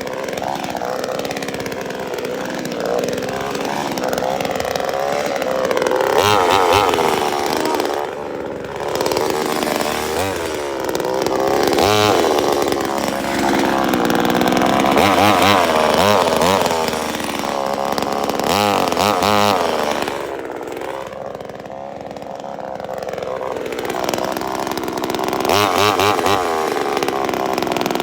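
Chainsaw engine running and revved again and again, its pitch rising and falling between steadier stretches.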